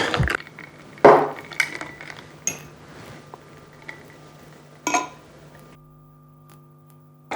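Cocktail shaker and glassware clinking and knocking as they are handled, a handful of separate sharp clinks a second or so apart. Near the end a steady low hum of several tones takes over.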